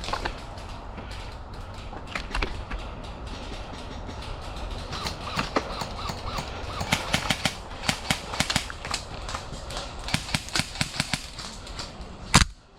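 Footsteps crunching through dry leaves and brush, an irregular string of crackles that gets busier about halfway through, over a steady low rumble. There is one loud sharp knock just before the end.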